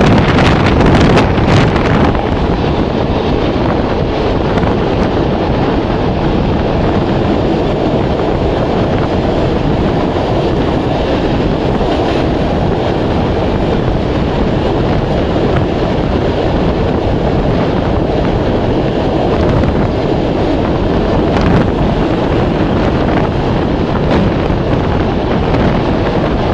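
Wind rushing over a microphone held out of the window of a moving passenger train, with the train's running noise underneath. It buffets harder for the first two seconds, then settles into a steady rush.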